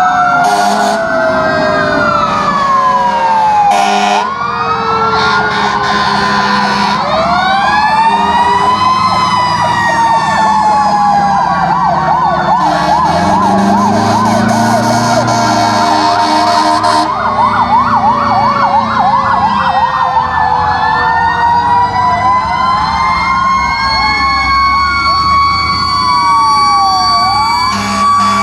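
Several fire-truck sirens sounding at once, loud and overlapping: slow wails rising and falling, with fast yelping warbles through the middle. Bursts of harsh noise cut in about four seconds in and for a few seconds around the middle, over a low truck-engine rumble.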